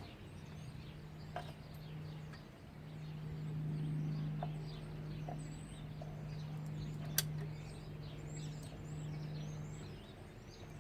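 Small birds chirping outdoors over a steady low hum, with a single sharp click about seven seconds in.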